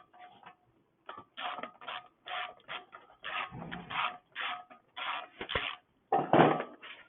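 Irregular short scraping and clattering sounds, about two a second, from small engine parts and tools being handled and set down on a workbench.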